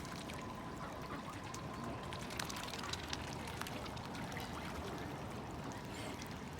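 Water trickling and splashing steadily, with many small drips and clicks throughout.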